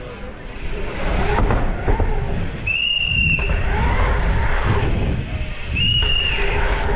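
Mountain bike being ridden hard over a freeride course, with a steady rumble of wind and tyres on the rider's camera microphone. Two short high squeals come through, about three seconds apart.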